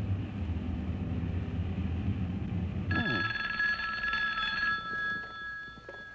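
A low steady rumble cuts off about three seconds in, and a desk telephone's bell rings once: a steady jangling ring for about two seconds that then fades away.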